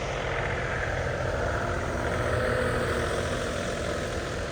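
A motor vehicle's engine running steadily at low revs, growing louder toward the middle and easing off again as it passes close by.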